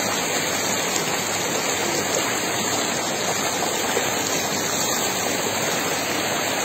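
Shallow river water rushing over rocks in small rapids: a steady, even rush of flowing water.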